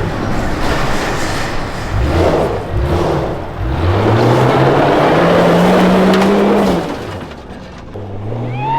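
Supercharged Jeep Cherokee engine revving in short bursts, then pulling up to high revs and holding there for about three seconds before backing off, and climbing again near the end.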